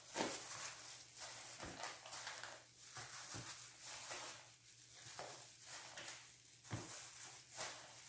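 Plastic crinkling and rustling with soft irregular knocks, as gloved hands work inside a plastic-bag-lined bucket of brined white cheese and set cheese cubes into plastic tubs.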